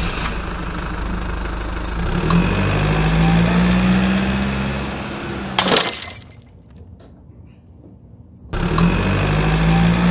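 Simulated car engine sound from a children's electric ride-on toy car: a recorded sports-car engine running and revving with a rising note, then a sharp click and a quieter gap, after which the same revving sound starts again abruptly about two seconds before the end.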